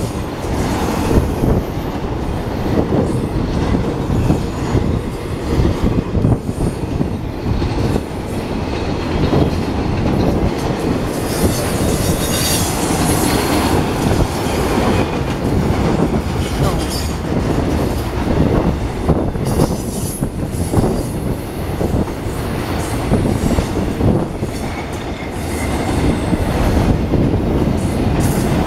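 Intermodal freight cars rolling past: a steady rumble of steel wheels on rail with scattered clicks at the rail joints, and a high wheel screech for a few seconds about midway.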